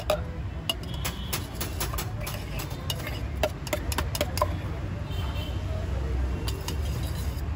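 Irregular light clicks and taps of a steel knife against a steel chutney tin while green chutney is scooped onto toast, over a steady low background rumble.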